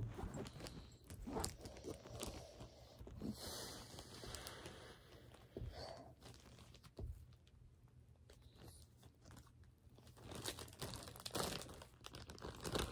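Plastic jewellery bag crinkling and rustling in irregular bursts as a necklace is handled, with scattered light clicks.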